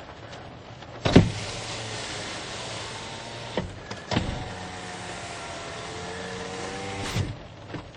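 2015 Toyota Corolla's electric window motor running twice, lowering the glass and raising it again, with a brief pause between. Each run starts and stops with a knock.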